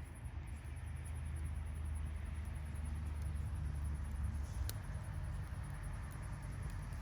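Campfire burning with a low steady rumble and faint crackling, and one sharp pop about two-thirds of the way through.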